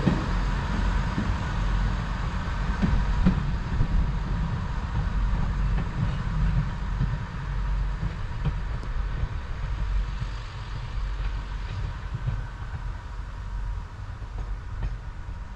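Low, steady diesel railway rumble that fades gradually as a diesel multiple unit pulls away down the line.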